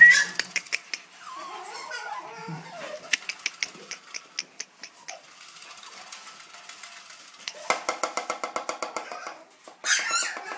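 Toy poodle puppy giving a rapid run of yaps about eight seconds in and a high burst near the end, among scattered clicks and knocks.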